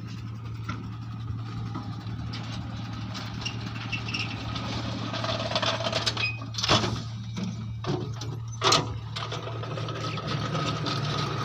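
An engine running steadily with a low hum, and two sharp knocks, one at about seven seconds and another about two seconds later.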